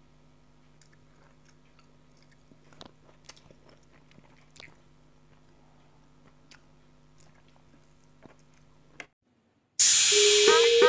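Faint scattered clicks and taps of a spoon and steel bowls as curry is served onto a plate of rice, over a steady low hum. Near the end the sound cuts out briefly, then loud music with a sung melody starts.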